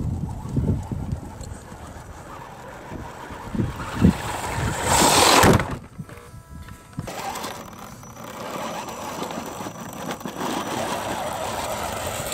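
Dual electric motors and gear drive of a 1/10-scale RC crawler truck whirring quietly as it crawls over frozen mud, with knocks of the tires on the rough ground. About five seconds in comes a loud whoosh lasting about a second.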